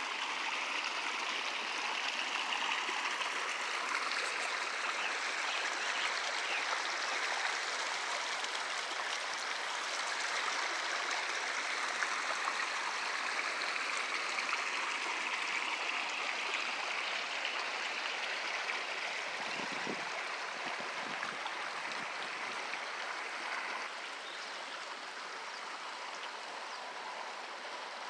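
Small rocky mountain creek running steadily, a constant rush of water over stones. It drops a little in level about four-fifths of the way through.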